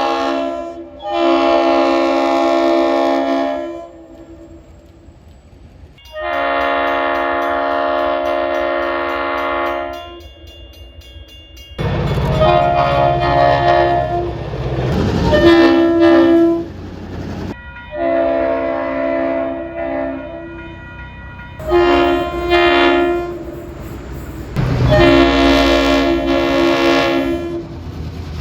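Multi-chime train air horns sounding a series of long blasts, each a chord of several steady notes lasting one to four seconds. The later blasts come over the low rumble of a moving train.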